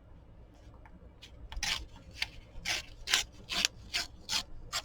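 Scissors cutting through a paper book page, about nine short snips in a row starting about a second in, roughly two a second.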